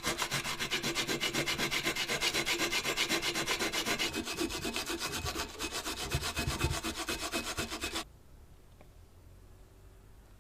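Sanding during the rust-removal work on a takoyaki plate: rapid, even back-and-forth strokes that stop abruptly about eight seconds in.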